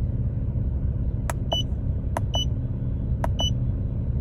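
A Porsche Cayman's flat-six engine idling with a steady low rumble. Three times, a sharp click is followed by a short high-pitched beep, about a second apart.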